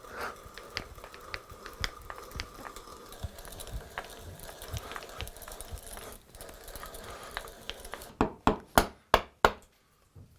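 Small clicks and light handling knocks on wood, then about six sharp knocks in quick succession near the end, like a hammer or mallet tapping on a wooden workpiece.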